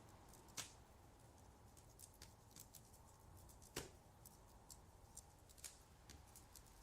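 Quiet indoor room ambience: a faint low hum with scattered small clicks and ticks, the two clearest about half a second and four seconds in.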